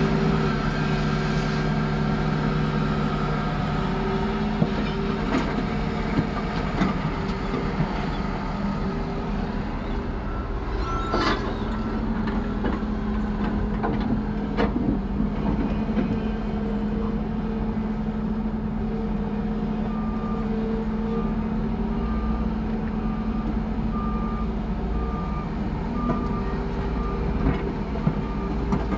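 Heavy diesel engines of a Volvo 480 excavator and a tipper truck running steadily as the truck is loaded, with two sharp knocks a few seconds apart near the middle. A repeated short beeping starts about two-thirds of the way through.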